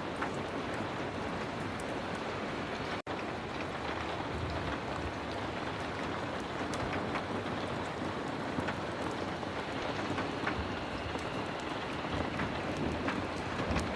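Heavy rain falling steadily, with scattered faint ticks through it. The sound drops out for a split second about three seconds in.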